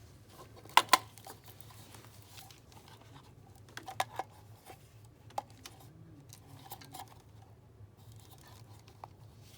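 Handling noises: a pair of sharp clicks about a second in, a cluster of clicks around four seconds, and scattered lighter ticks and rustles over a low steady hum.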